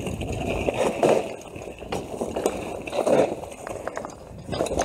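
Mountain bike being ridden over a wet, muddy trail: tyres sloshing through mud and water, with the bike knocking and rattling over the ground.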